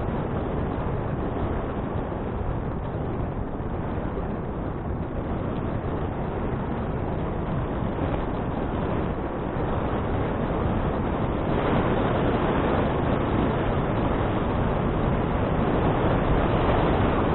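Steady wind and rolling noise from a moving bicycle, picked up by the action camera's microphone. It grows louder about two-thirds of the way through.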